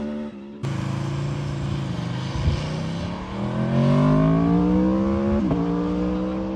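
Aprilia RSV4 1100 Factory's V4 engine running, revs held steady after a brief break about half a second in, then climbing in pitch from about three seconds in. A sharp click about five and a half seconds in is followed by a drop in pitch, as in a quick gear shift.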